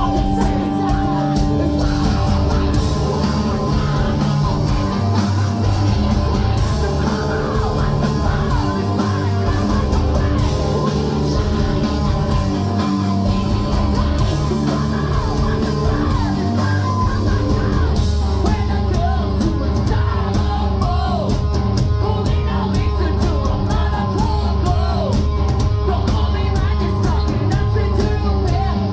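A post-hardcore band playing live and loud: distorted guitars, bass and drums, with screamed and yelled vocals over them.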